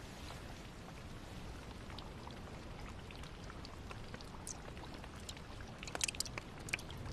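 Steady rain falling, an even hiss with scattered sharper drips and splashes that come more often near the end.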